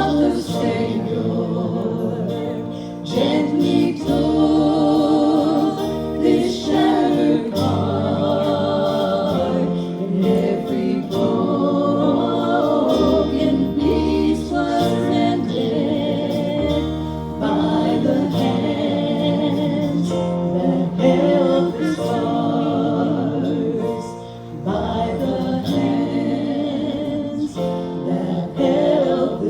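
Gospel singing with accompaniment: voices singing with vibrato over long-held bass notes that change every second or two.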